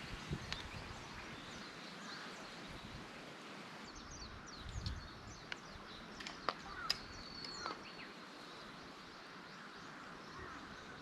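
Faint outdoor ambience: a soft steady hiss with scattered short, high bird chirps, clustered between about four and eight seconds in, and a few sharp clicks.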